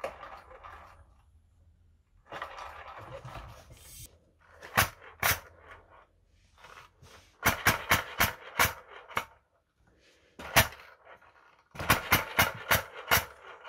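Floor pump hissing as the bottle tank is pumped up, then a 3D-printed single-cylinder compressed-air engine clattering in short runs of rapid clicks and puffs as its propeller turns. It stops and starts again a few times.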